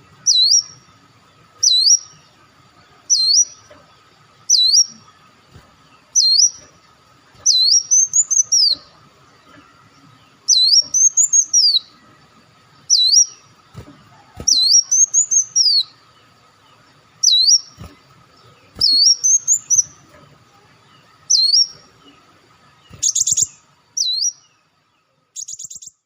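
Sunbird calling: sharp, high, swooping notes repeated about every second and a half, mixed with longer arched chirping phrases. Near the end come two rapid buzzy trills. A faint steady whine runs underneath.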